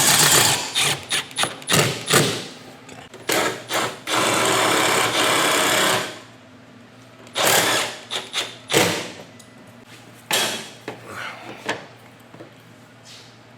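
Power drill driving a screw through a steel knockdown door-frame jamb into the bottom plate to lock it in place. It runs in two spells, a short one at the start and a longer one of about two seconds around four seconds in, with sharp knocks and clicks between and after.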